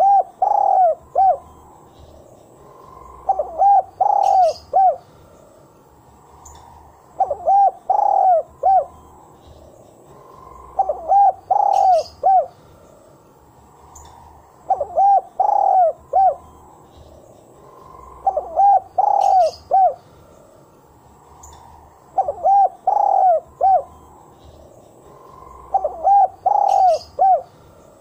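Spotted dove cooing its song over and over: a phrase of several quick coos repeated about every four seconds.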